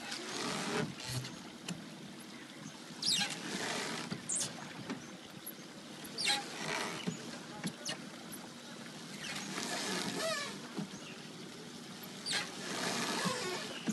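Wooden rowboat being rowed by hand: an oar stroke about every three seconds, five in all, each a swishing splash of water with sharp clicks.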